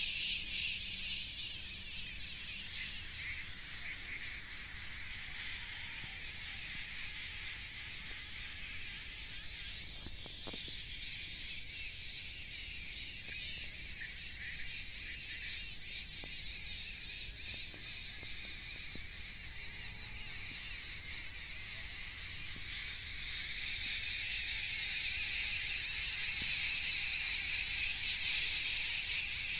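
Steady chorus of insects, a dense high shrill that grows louder near the end.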